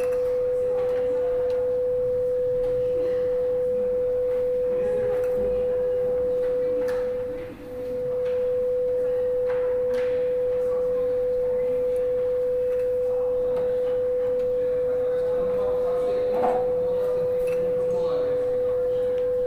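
A steady electronic tone at one pitch, held without a break except for a brief dip about seven and a half seconds in. Faint rustling and a few light clicks lie beneath it.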